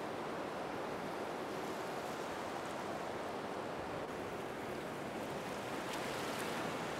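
Steady, even background hiss with no distinct events, and a couple of faint ticks near the end.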